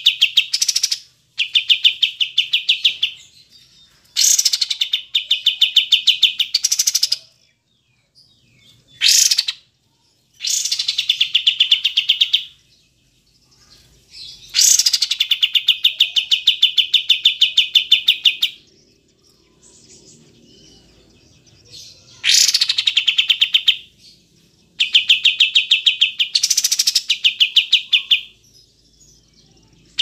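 Kapas tembak bulbul singing: bursts of fast, rapidly repeated chirping notes, each burst lasting from under a second to about four seconds, with short pauses between.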